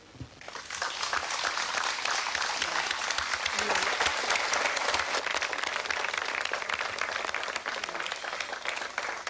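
Audience applause: dense clapping that starts about half a second in and keeps on, easing slightly near the end.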